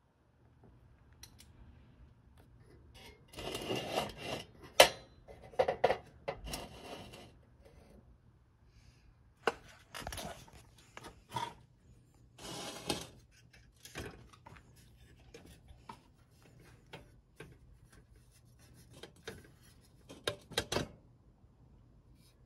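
Metal parts of a Radius No. 119 pressure lantern being handled: scattered clinks and light knocks of metal on metal, with several stretches of rubbing and scraping. The sharpest click comes about five seconds in, and a quick cluster of clicks near the end.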